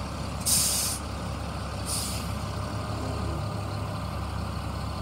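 1999 GMC C7500 grain truck idling with a low steady rumble. About half a second in, a loud short hiss of compressed air is let out from its air brake system, and a second, weaker hiss follows about a second and a half later.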